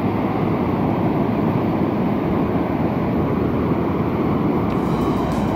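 Loud, steady roar of Pacific Ocean surf breaking on the beach.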